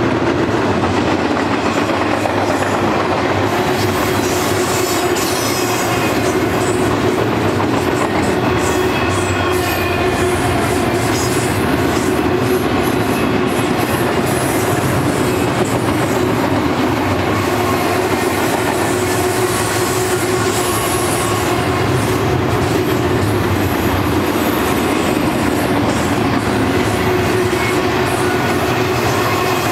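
Double-stack container cars of a freight train rolling steadily past: a continuous rumble of steel wheels on rail, with a thin, steady wheel squeal running over it.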